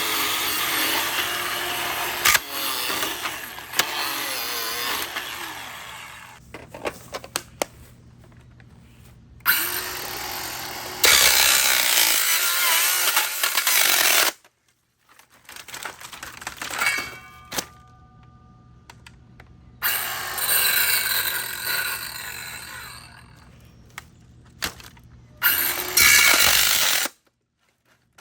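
Ryobi One+ cordless circular saw cutting into a laptop in several loud runs with pauses between them, the blade biting through plastic and metal.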